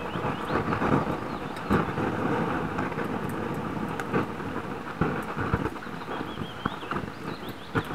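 Steady crackling, rumbling noise with scattered sharp clicks as molten metal is poured into an investment-casting flask and the mold bubbles and spits. The bubbling is the sign of a mold that had not been burned out long enough.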